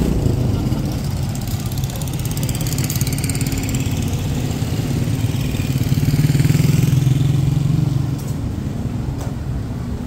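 Street traffic: motor vehicle engines running as they pass close by, loudest about six to seven seconds in.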